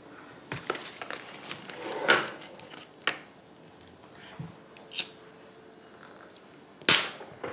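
A few short knocks and clicks of small objects being handled on a kitchen counter and table, with the sharpest ones about two seconds in and near the end.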